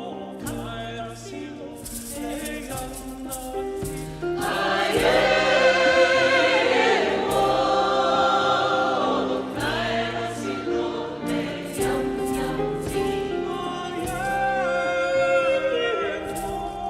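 A vocal ensemble singing in several-part harmony, growing louder about four seconds in, with light percussive hits.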